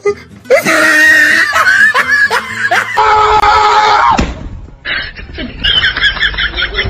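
A person's voice shrieking and laughing loudly, with a fast run of laughter near the end.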